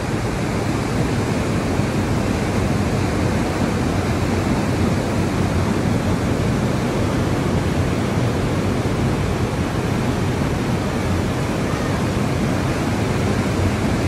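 Rough, churning sea: a steady wash of breaking surf with no pauses between waves.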